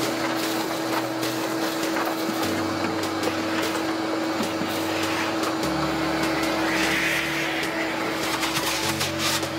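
Vacuum running with a steady whine as its hose sucks dirt and debris out of a car's cowl area below the windshield, with small clicks of debris hitting the hose.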